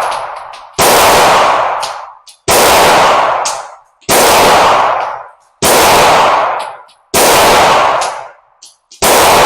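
Gunshots on a shooting range: six single shots fired at a steady pace, about one every second and a half, each with an echoing tail that fades over about a second.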